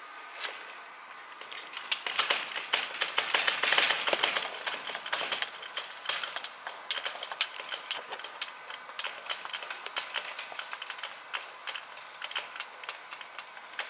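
Machine screws being driven into a sliding screen door's handle, making a busy run of small metal clicks and scrapes. It is loudest from about two to five seconds in, then goes on as lighter, scattered ticking.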